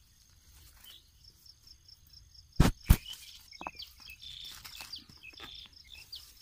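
Two sharp clicks close together a little under three seconds in, then crickets chirping in a steady high trill, about five pulses a second.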